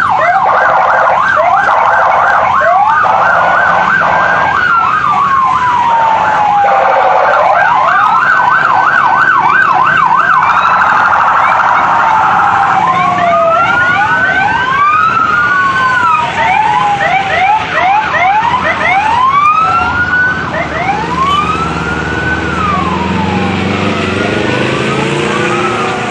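Sirens of a police convoy, several overlapping: fast yelping sweeps in the first half, then slower rising-and-falling wails from more than one siren as the vehicles pass.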